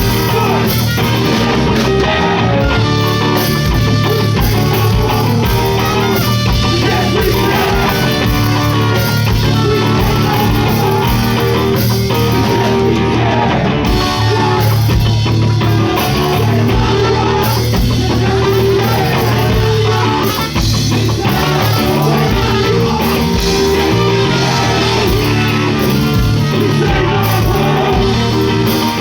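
Live rock band playing loud and steady, with electric guitar and drum kit.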